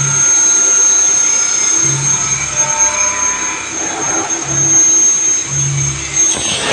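Vertical machining center running a finishing cut, with a steady high-pitched whine and machine noise, and low hums that come and go. A burst of hissing noise starts just before the end.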